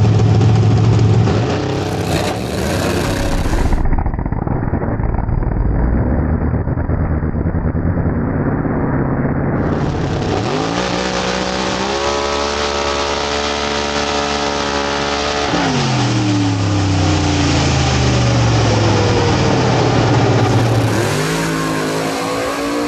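Pro Mod Camaro's ProCharger-supercharged big-block Chevy V8 running very loud at full throttle on a drag pass. Partway through, its pitch climbs, holds high for a few seconds, then falls away steadily.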